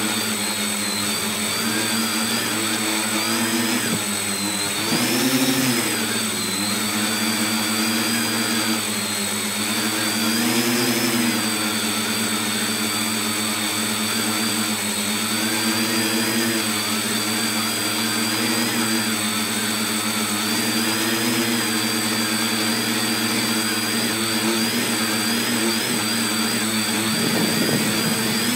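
RC tricopter's electric motors and propellers buzzing steadily in flight, heard up close from a phone mounted on the aircraft, with a high whine over the hum. The pitch rises briefly with throttle twice, about five and eleven seconds in.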